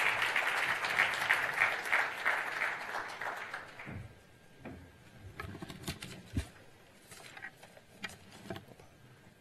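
Audience applause, dense at first and dying away about four seconds in. Then quieter scattered knocks and rustles: papers being handled at a lectern.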